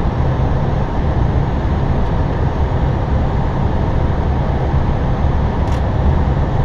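Steady flight-deck noise of an Airbus A320 descending on approach: a constant rush of air with a deep low hum beneath it.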